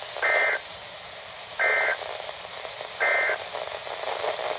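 Three short, identical bursts of shrill two-tone digital data about a second and a half apart, heard over a weather radio receiver with static hiss between them: the SAME end-of-message code that closes an Emergency Alert System broadcast.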